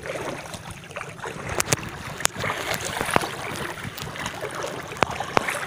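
Shallow seawater sloshing as someone wades through it, with a few sharp clicks.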